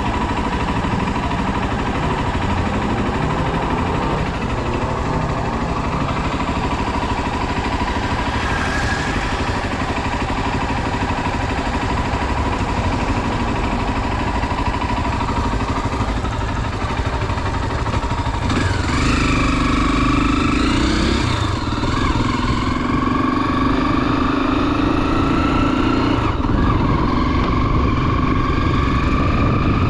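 Honda XR 250 Tornado's single-cylinder four-stroke engine running under way. About two-thirds of the way in, its pitch rises and falls back several times as the bike accelerates through the gears.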